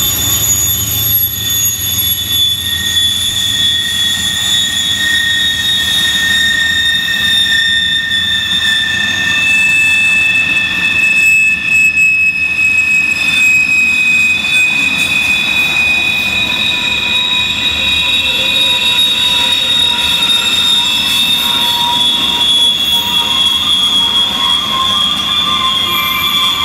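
A coal train's gondola cars rolling past, their wheels squealing in several steady high-pitched tones that slowly drift in pitch over a low rolling rumble.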